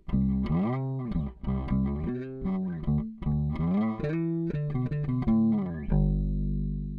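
Squier Vintage Modified Jaguar Bass (P/J pickups) played in a quick riff, several notes bent up and back down. About six seconds in, a final hard-struck note is left to ring and fade.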